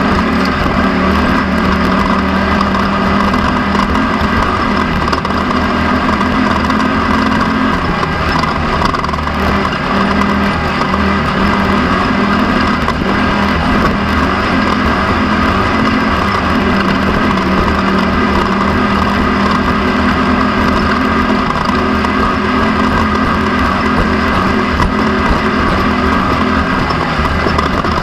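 Off-road race vehicle's engine running steadily under load, heard from an onboard camera, over continuous road and wind noise.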